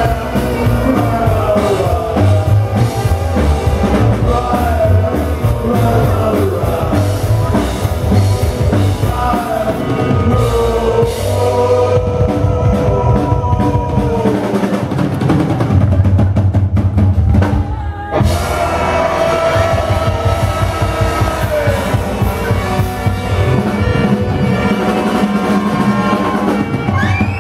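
Live rock band playing loudly on stage: sung lead vocals over drums, acoustic guitar and upright double bass, with a brief stop about two-thirds of the way through before the band comes back in.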